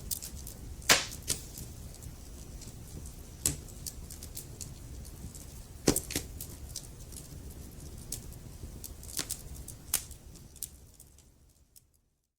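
Wood fire crackling in a fireplace: a steady low rumble under frequent sharp pops and snaps, the loudest about a second in and again near the middle. The fire fades out to silence near the end.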